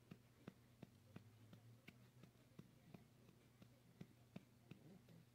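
Near silence: a faint low room hum with soft, scattered clicks, a few each second.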